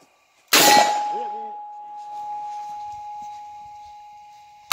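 A pistol shot about half a second in, with a steel target ringing after the hit: one steady tone that fades slowly over about four seconds. Another shot comes right at the end.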